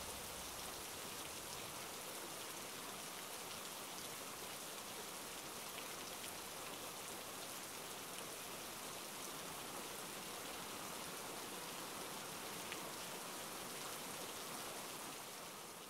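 Rain falling steadily, an even hiss with faint scattered drop ticks, fading away near the end.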